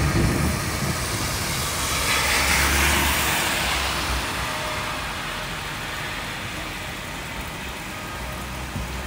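Steady heavy rain, with a vehicle driving past on the wet road. Its tyre hiss swells and fades about two to three seconds in.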